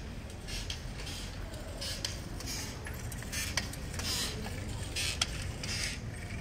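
City street ambience with a steady low traffic rumble and the walker's footsteps on the pavement as regular scuffing steps, with two sharp clicks in the second half.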